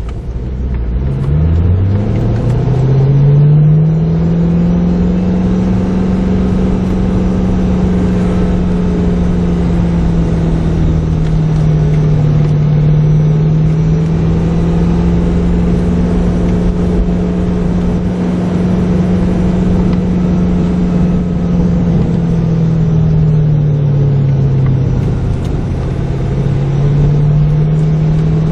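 A car's engine and road noise heard from inside the cabin. The engine note climbs as the car accelerates over the first few seconds, holds steady while cruising, then dips briefly and picks up again near the end.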